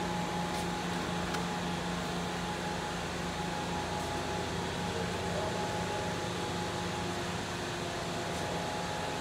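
Steady hum of running shop machinery: a low drone with a fainter, higher whine over it and a couple of faint ticks about a second in.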